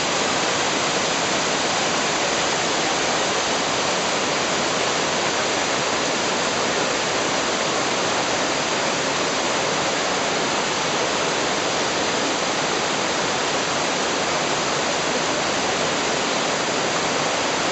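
Mototaki waterfall, spring-fed water from Mt. Chokai's underground flow pouring over rock, making a steady rushing sound without a break.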